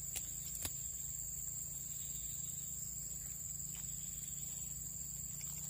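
Crickets trilling in one steady, high-pitched, unbroken tone, over a low steady rumble, with a few faint clicks in the first second.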